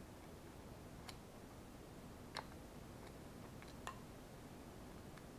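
A few small, sharp clicks of plastic and metal parts as a Powerball gyro's casing and screws are handled with a small screwdriver, over low room hiss. The two loudest clicks come about a second and a half apart, in the middle of the stretch.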